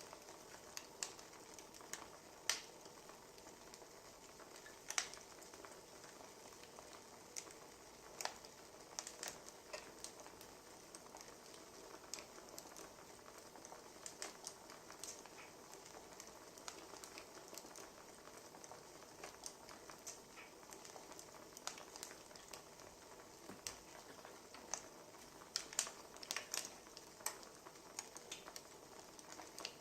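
Wood fire crackling: irregular sharp pops and snaps over a soft steady hiss, with a cluster of louder pops near the end.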